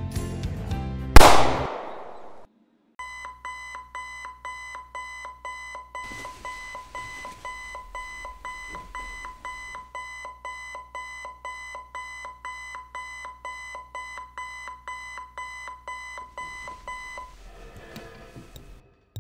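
An electronic alarm clock beeping in a fast, even run of short two-pitch beeps, about three a second, for some fourteen seconds before it stops. Before it, music is cut off by a single loud bang.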